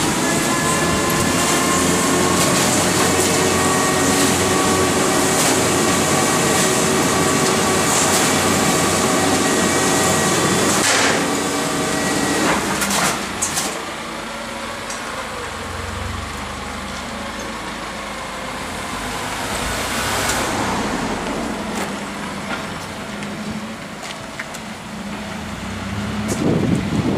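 A rotary-drum garbage truck's packing mechanism running, with a steady whine over the engine held at raised revs. It stops about 13 seconds in, leaving the truck's engine running quietly, and the engine rises again near the end as the truck pulls away.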